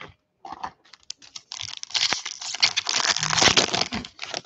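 Foil trading-card pack wrapper being torn open and crinkled by hand. A few light crackles at first, then dense, continuous crinkling from about a second and a half in until near the end.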